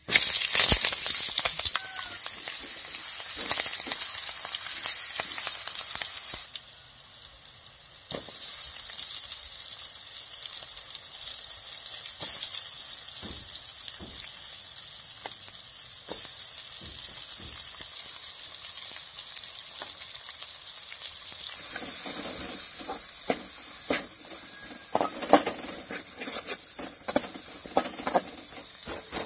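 Hot oil sizzling hard in a metal kadai as ingredients hit it: a sudden loud sizzle that eases briefly and picks up again as sliced onions and green chillies fry. Near the end a steel spatula scrapes and knocks against the pan as they are stirred.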